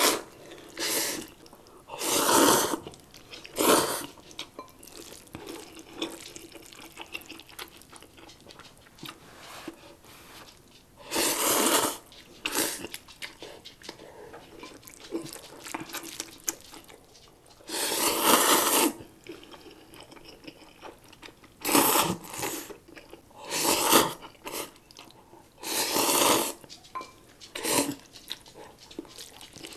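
Instant ramen noodles being slurped in about a dozen loud bursts of half a second to a second each, with quieter chewing and wet mouth sounds between them.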